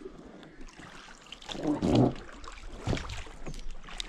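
Casting net being hauled up by hand over a boat's side, with water splashing and dripping off the net and rope. There is one louder low bump about two seconds in and a few sharper knocks after it.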